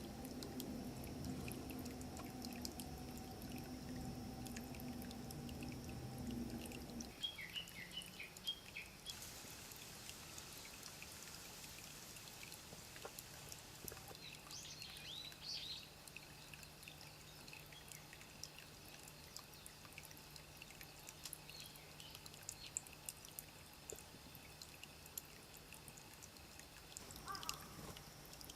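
Small birds chirping faintly in short bursts, about eight seconds in, again around fifteen seconds and near the end, among light scattered ticks and drips. A low hum runs under the first seven seconds or so, then stops.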